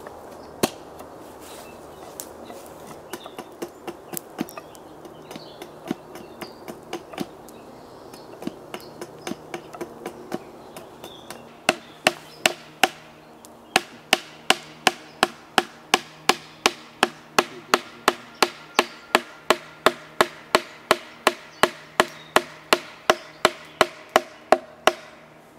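Wood-on-wood knocking: tools struck into a log, first light and irregular over a low steady hum, then from about halfway loud, even blows at two or three a second.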